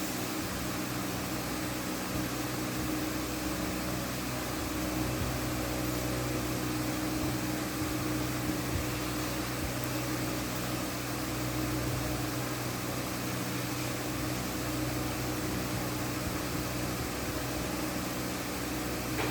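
Electric fan running steadily: a constant rush of moving air over a low motor hum.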